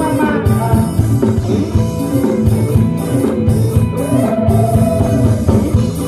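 Live combo band playing a Thai ramwong dance song: drum kit beat and electric guitar, with a singer's voice holding a long note about two-thirds of the way through.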